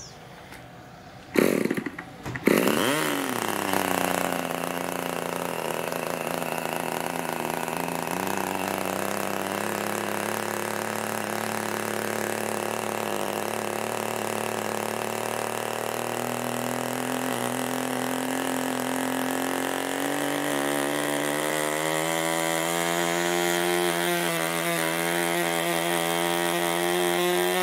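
A Merco 61 Mk IV two-stroke glow model-aircraft engine, turning an 11x6 prop, sputters briefly about a second in and catches about two seconds in with a quick rise in revs. It then runs steadily, and its pitch climbs gradually through the second half as the needle valve is adjusted by hand.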